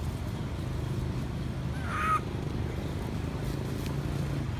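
A baby macaque gives one brief harsh cry about two seconds in, over a steady low rumble.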